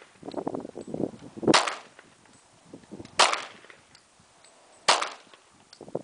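Three handgun shots, evenly paced about a second and a half apart, each ringing out briefly. A rough scuffing noise comes before the first shot.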